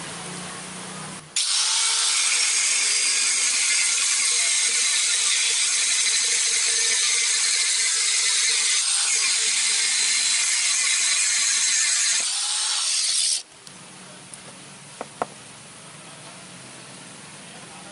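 Angle grinder cutting through the pry-bar part of a hatchet head: a loud, steady, hissing cut that starts about a second in and stops abruptly after about twelve seconds, leaving a quieter low hum.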